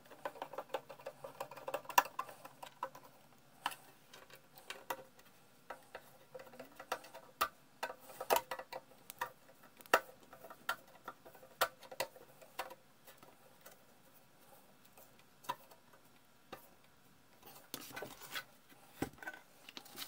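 Scattered light clicks and taps of screws and a screwdriver on the Heathkit T-3 signal tracer's metal cabinet as it is fastened back together, coming at an irregular pace.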